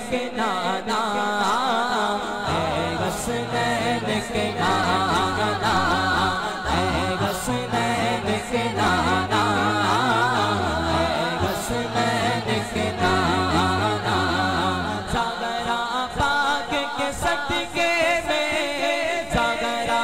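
Naat: a man's voice singing a drawn-out, wavering melody with echo, over a low held vocal drone. The drone stops about 15 seconds in, and a quick, even rhythmic pulse takes over.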